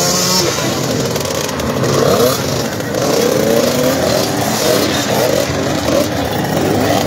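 Several small minicross motorcycle engines running together, idling and being blipped, their overlapping pitches rising and falling.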